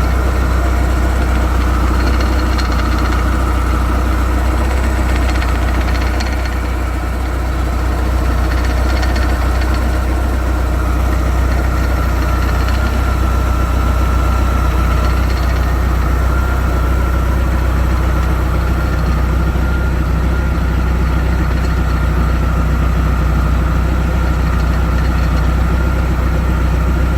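The 1986 Sea Ray's engine idling steadily, with a thin high whine running steadily over the low rumble.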